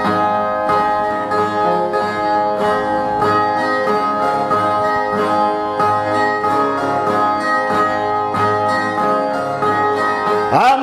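Ten-string Brazilian viola playing a plucked, strummed instrumental introduction in a steady repeating pattern. A man's singing voice comes in right at the end.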